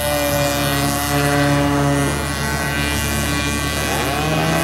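Combustion-engine radio-controlled speedboats running at speed, a steady engine note that shifts pitch about two seconds in and rises again near the end as the boats pass and the throttle changes.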